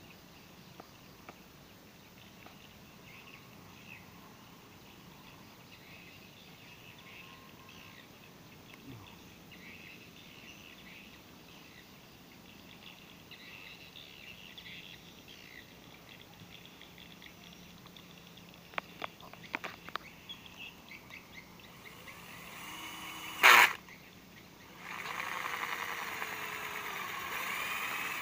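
Faint bird calls, then a few light clicks and a short loud burst. From a few seconds before the end, a small handheld drill runs into a PVC irrigation pipe, boring a hole for a drip line, its motor whirring with a wavering pitch.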